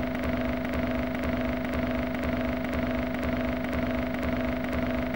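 A steady drone with two held tones, one low and one in the middle, over a fluttering low rumble.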